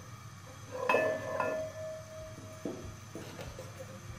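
A spoon knocking twice against an aluminium cooking pot about a second in, knocking ghee off into the pot; the pot rings for about a second and a half afterwards. A few lighter knocks follow.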